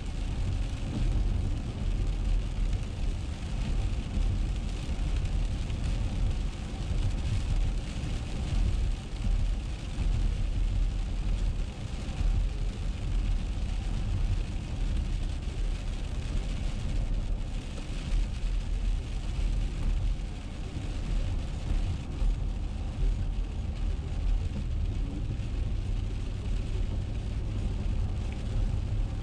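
Steady low rumble of a car driving on a wet road, heard from inside the cabin, with an even hiss above it.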